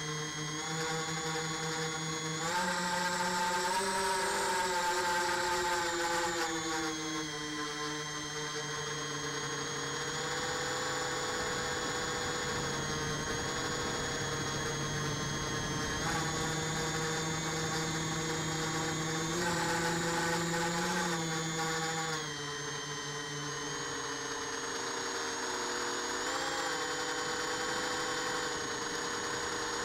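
Small drone's electric motors and propellers whining steadily, the pitch of the whine rising and falling with the throttle. It jumps up and grows louder about two seconds in, then slowly settles, lifts again briefly around two-thirds of the way through and drops just after.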